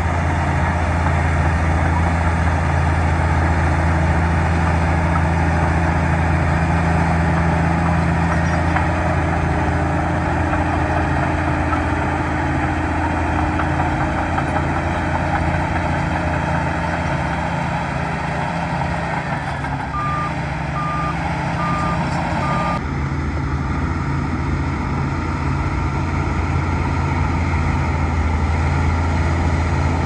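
Heavy bulldozer's diesel engine running steadily at a low drone while pushing dirt. About two-thirds of the way through, a reverse alarm beeps four times.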